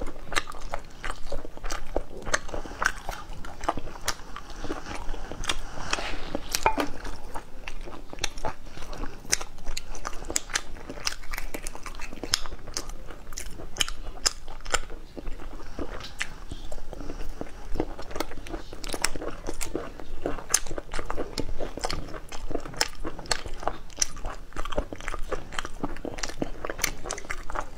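Thin cooked snail shells cracking and crunching as fingers pick them apart, a dense, irregular run of small snaps and clicks.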